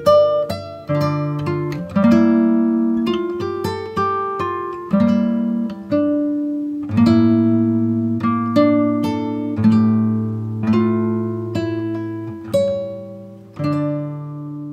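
Background instrumental music led by acoustic guitar, with plucked notes and chords ringing out one after another.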